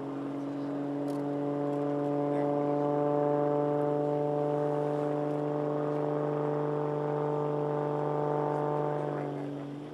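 Propeller-driven aerobatic monoplane's piston engine and propeller passing overhead, a steady pitched tone that sinks very slightly. Near the end the pitch drops and the sound gets quieter.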